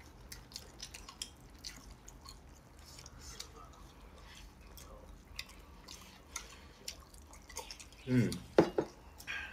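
Faint eating and drinking sounds: scattered small clicks and mouth noises over a low steady hum, with a short burst of voice about eight seconds in.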